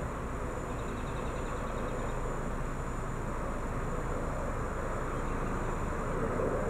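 Steady outdoor background noise: an even hiss and low rumble with no distinct events.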